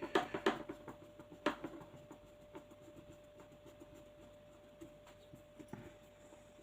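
Small clicks and ticks of a screwdriver and hop-unit parts as a small screw is turned in, with a cluster of sharp clicks in the first second and a half, then faint scattered ticks.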